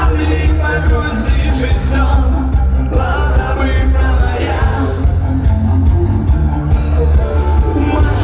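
Punk rock band playing live with a singer: vocals over a loud, steady bass-heavy band.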